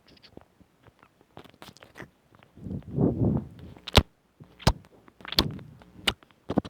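Close-miked ASMR mouth sounds: wet clicks, pops and smacks of lips and tongue. A fuller, wetter stretch comes about three seconds in, then a run of sharp pops about 0.7 s apart.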